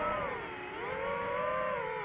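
DJI FPV quadcopter's motors and propellers whining in flight, the pitch dipping about half a second in, climbing again about a second in, then dropping near the end as the throttle changes.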